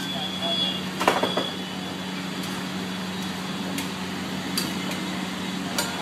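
Metal spatula and spoon clinking and scraping on a large flat griddle as food is chopped and stirred: a quick cluster of clinks about a second in, then single clinks every second or so. A steady hum runs underneath.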